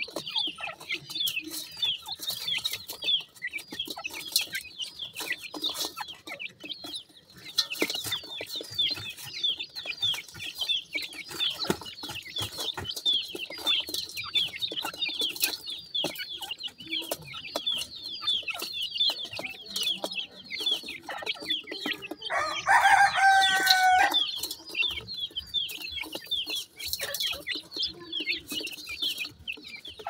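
Francolin chicks peeping without pause, many short high chirps a second, with scattered light clicks of pecking. About three-quarters of the way through, a louder, lower call lasts about a second and a half.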